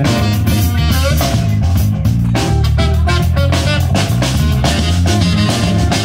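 A live jazz-funk band playing: saxophone carrying the melody over drum kit, bass and guitar.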